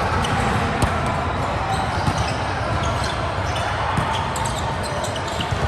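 Indoor volleyball play in a sports hall: a steady background of court noise, cut by several sharp knocks of the ball being struck or bouncing, with the hall's echo.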